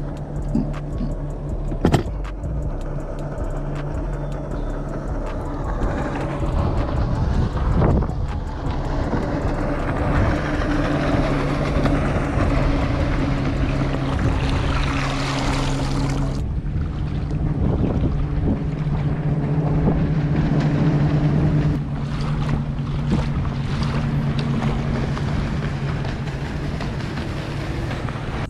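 Motorboat engine running steadily out on the lake, a held low hum under wind and water noise. A sharp knock comes about two seconds in and another a few seconds later.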